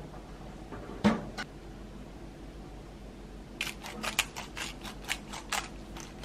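Hand-twisted pepper grinder cracking peppercorns, a quick run of crisp clicks at about five a second in the second half. One sharp knock about a second in.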